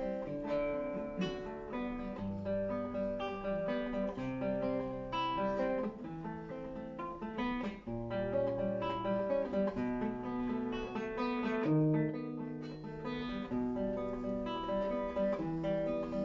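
Acoustic guitar playing the instrumental introduction to a song: plucked chords over low bass notes that change every second or two.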